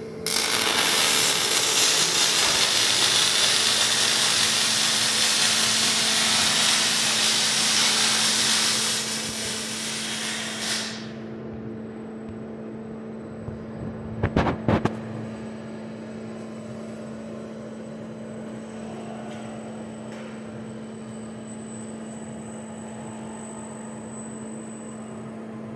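Robotic MIG welding arc sizzling steadily for about ten seconds, then stopping as the weld ends. A few sharp clicks follow a few seconds later, over a steady low hum.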